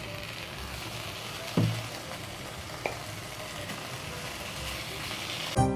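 Chicken drumsticks sizzling in hot oil with ginger and garlic in a frying pan, with a dull thump about a second and a half in and a small click about three seconds in. Music comes in at the very end.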